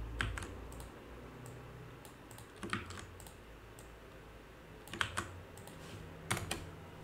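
Typing on a computer keyboard: a few keystrokes at a time in short clusters, with pauses between them.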